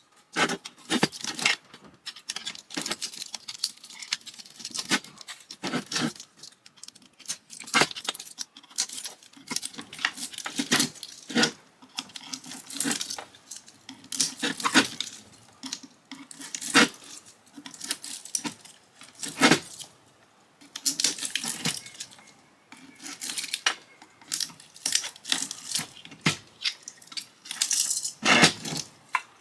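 Irregular clinks, clatters and knocks of metal parts and tools being handled while a ceiling fan is taken apart.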